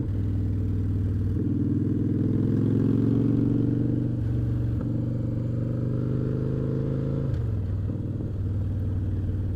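V-twin cruiser motorcycle engine under way at road speed, the pitch climbing as it accelerates, then dropping with gear changes about four seconds in and again near seven seconds.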